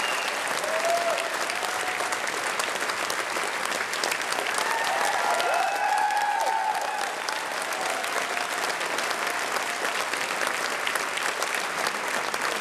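Audience applauding steadily, with a few short cheers from voices in the crowd about a second in and again around the middle.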